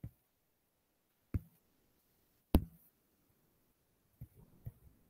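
Stylus tapping on a pen tablet. Three separate sharp knocks, the loudest about two and a half seconds in, then a quick run of light taps from about four seconds in as handwriting starts.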